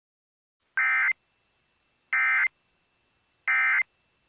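Emergency Alert System end-of-message data bursts: three short, identical warbling tone bursts about a second and a half apart, the digital code that closes an EAS alert.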